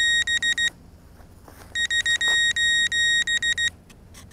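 High-pitched electronic beeping from a small piezo buzzer, typical of an FPV quadcopter's beeper, in rapid pulses. One burst stops under a second in, and another runs for about two seconds from near the middle.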